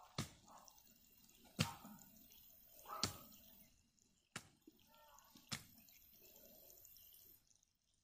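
Blows of a wooden fence post striking down at a snake on the ground: five sharp knocks about a second and a half apart, the second and third loudest.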